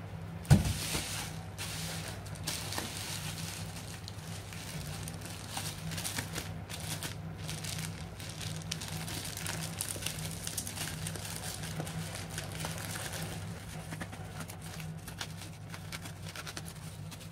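Bubble wrap crinkling and crackling as it is handled and snipped open with scissors, with a sharp thump about half a second in. A steady low hum runs underneath.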